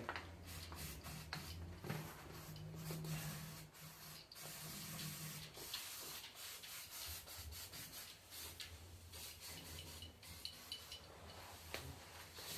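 Faint rubbing and light clicking of hands squeezing and spreading silicone sealant onto a gearbox case's mating surface, over a low steady hum.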